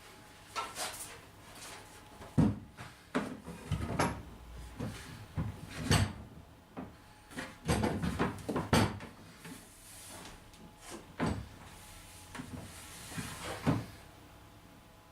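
A series of irregular knocks and clunks, about a dozen over the stretch with the loudest near the middle, as of objects or timber being handled and set down.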